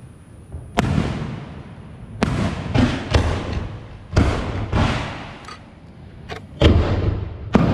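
Aerial fireworks display going off: about ten sharp bangs at irregular intervals, some in quick pairs, each dying away slowly in a rumbling tail.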